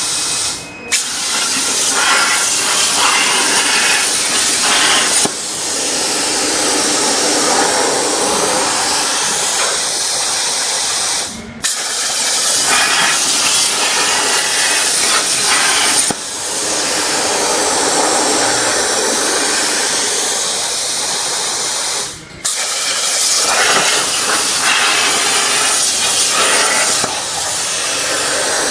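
CNC plasma torch cutting 1.5 mm stainless steel sheet: a loud, steady hiss that breaks off briefly three times and starts again.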